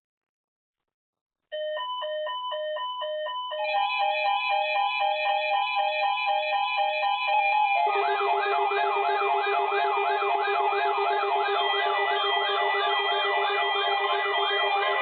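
Electronic alarm tones and sirens building up in layers: a pulsing multi-tone beeping starts about a second and a half in, steady tones join a couple of seconds later, and from about eight seconds a steady low tone and a fast up-and-down sweeping siren join, about two sweeps a second.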